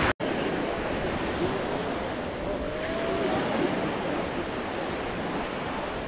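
Small waves washing onto a sandy beach, a steady surf hiss. The sound drops out for a split second just after the start.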